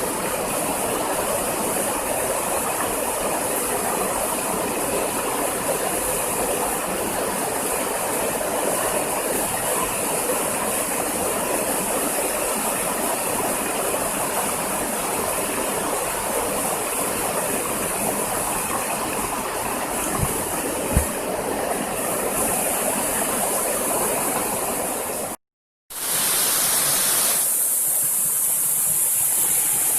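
Waterfall water rushing steadily. About 25 s in the sound cuts out briefly, then resumes with a hissier, thinner character.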